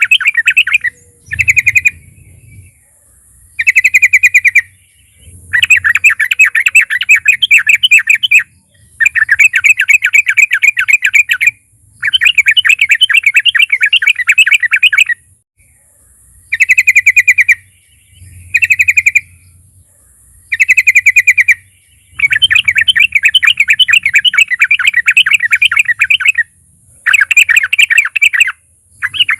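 Yellow-vented bulbul (trucuk) singing loud, rapid bubbling phrases. About ten bursts of quick notes are broken by short pauses, and some phrases run for three or four seconds.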